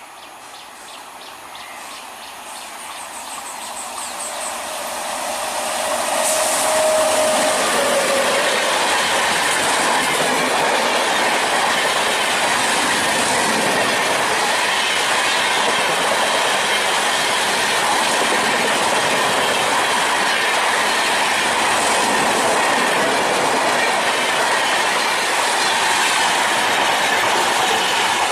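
Express passenger train hauled by a WAP-7 electric locomotive approaching and then rushing past at high speed. The sound grows louder over the first six seconds, then holds as a loud, steady rush and rattle of coach wheels on the rails. A brief steady tone sounds about six seconds in.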